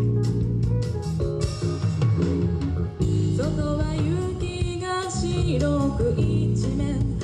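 Live rock band playing: guitar chords and drums, with a voice singing from about three seconds in.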